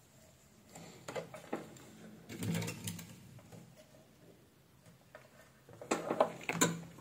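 Clicks and light clatter of a small circuit board and its wires being handled and set back into the plastic weighing-scale housing, in three short bursts: about a second in, around two and a half seconds in, and near the end.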